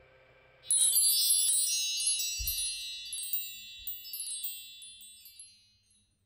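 A shimmer of many high metal chime tones that starts suddenly just under a second in, rings on with overlapping strikes, and fades away over about five seconds.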